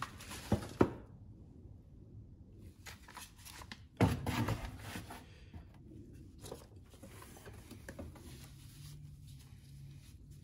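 Tools and objects being handled and shifted in a cardboard box of tools: a couple of sharp knocks near the start, a louder clatter about four seconds in, then quieter rustling and small knocks.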